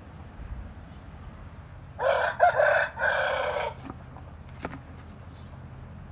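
Seven-month-old barred Plymouth Rock rooster crowing once, about two seconds in: one call of under two seconds with a short break in the middle.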